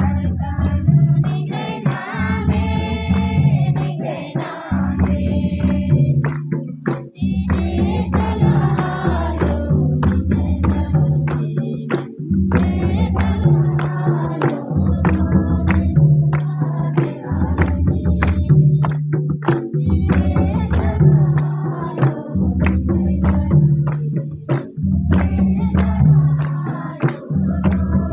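Kurukh devotional song: voices singing over a steady jingling percussion beat of about two strokes a second and a deep, repeating bass line.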